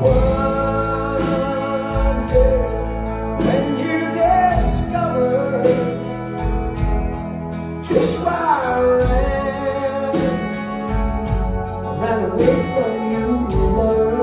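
Live country-rock band playing, with electric guitars, bass and drums and a bending lead melody over them.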